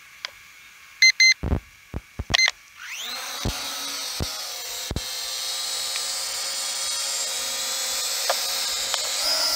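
Holy Stone HS165 quadcopter drone: a few short electronic beeps and knocks, then about three seconds in its motors spin up with a rising whine as it lifts off. It then holds a steady high-pitched whine while it hovers.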